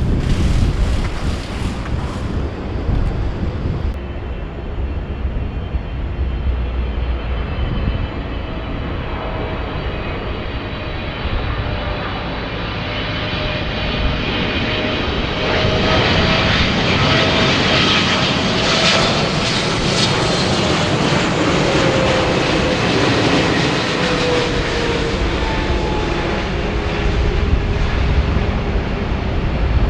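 Jet aircraft engines passing close by, the roar building to a peak over about twenty seconds, with a whine that slides down in pitch as the aircraft goes past.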